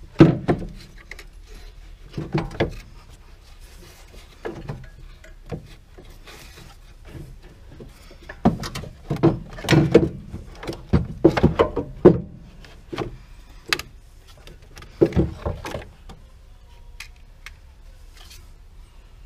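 Irregular clunks, knocks and rattles of tools and metal parts being handled, heaviest in a cluster about eight to twelve seconds in and again around fifteen seconds, with quieter stretches between.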